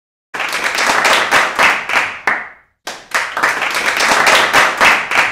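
Hands clapping in a quick, even rhythm of about three or four claps a second, in two runs of roughly two and a half seconds, each fading out at its end.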